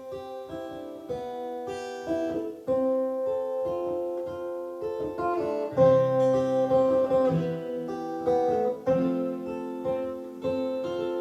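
Live acoustic guitar intro to a folk song: picked, ringing notes, growing fuller as lower notes join about six seconds in.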